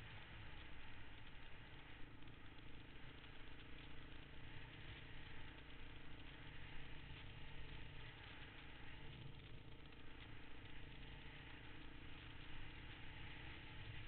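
Honda dirt bike engine running steadily while riding a dirt track, its note heard under a steady rushing noise.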